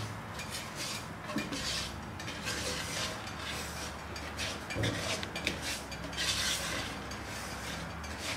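A spatula stirring dry granulated sugar in a nonstick pot, an irregular gritty scraping swish with each stroke, with one soft knock against the pot about five seconds in. The sugar is heating on the stove before it melts into caramel.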